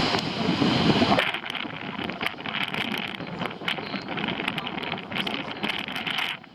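Strong wind buffeting the microphone, mixed with the rush of ocean surf. For about the first second it is a deep rumbling buffet; then it turns to a hissing, crackling rush that cuts off suddenly shortly before the end.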